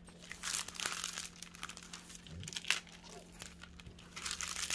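Clear plastic protective film over a diamond painting canvas crinkling as hands press and smooth it flat to push out air bubbles, with irregular crackles throughout.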